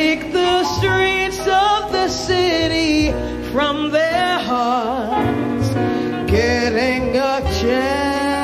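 Live big band jazz with a singer carrying the melody over the band, the voice swooping with wide vibrato.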